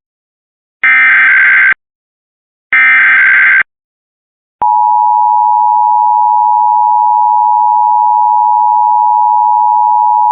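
Emergency Alert System SAME header: two harsh digital data bursts about a second long each with a second's silence between, then about four and a half seconds in the steady two-tone EAS attention signal starts and holds. This announces the Missouri statewide monthly test.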